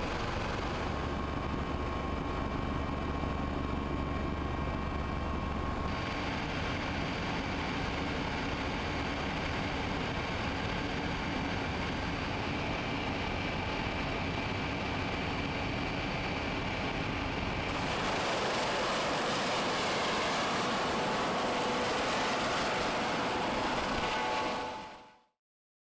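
Helicopter in flight, heard as steady engine and rotor noise with a few steady high tones over it. The sound shifts at picture cuts, and about two-thirds of the way through a brighter, slightly louder hiss takes over. It then fades out just before the end.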